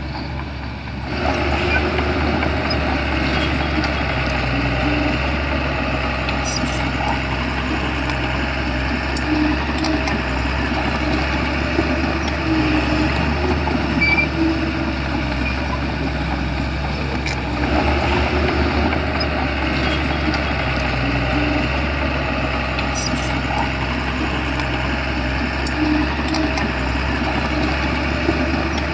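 Shantui bulldozer's diesel engine running steadily, with mechanical clatter over it; it gets louder about a second in.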